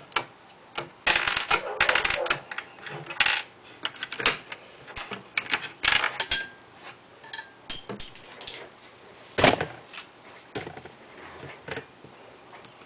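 Plastic Lego bricks clicking and rattling as they are handled and pressed onto a baseplate: a run of irregular sharp clicks, thickest in the first few seconds, with the loudest snap about nine and a half seconds in.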